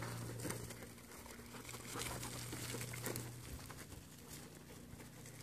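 Light, scattered scuffs and clicks of goats' hooves and a dog's paws moving over a dirt pen, over a steady low hum.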